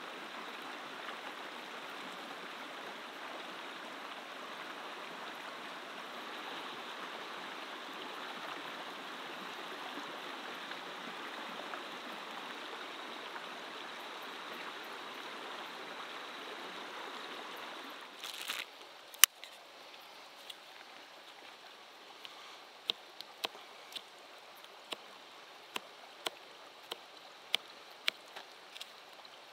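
Shallow river running over a rocky bed: a steady rush of water. About eighteen seconds in it cuts off, and after a single sharp click a knife starts chopping red chillies on a plastic cutting board, a run of about ten sharp taps.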